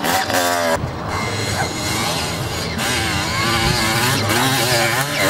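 Motocross motorcycle engines running and revving, their pitch rising and falling, with a sharp drop in revs in the first second.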